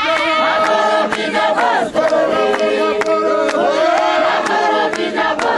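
A church congregation singing a cappella in several-part harmony, with sharp regular beats about two or three a second.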